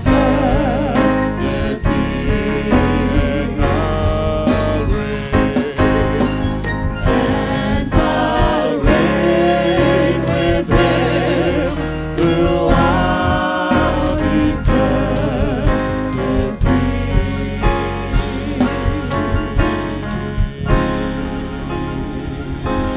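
Church worship team singing a gospel worship song with band accompaniment: voices with vibrato over keyboard, bass and a steady drum beat. The voices thin out in the last few seconds, leaving mostly the instruments.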